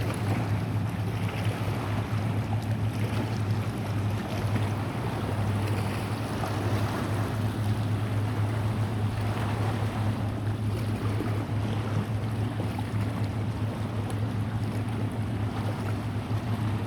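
A boat engine drones steadily with a constant low hum, over a rushing haze of wind and water.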